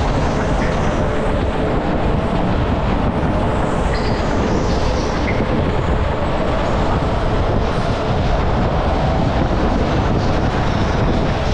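Go-kart running at speed around an indoor track, heard from a camera mounted on the kart: a loud, steady, dense rumble of the kart's drive and tyres with no clear engine note.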